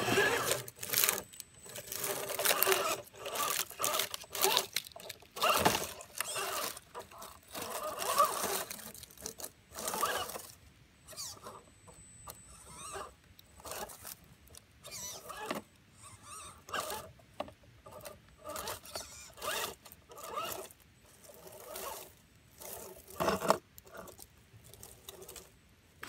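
Small electric motor and geartrain of an RC4WD Trailfinder 2 scale rock crawler whining in short, irregular throttle bursts, with knocks and scrapes as its tyres climb over rocks.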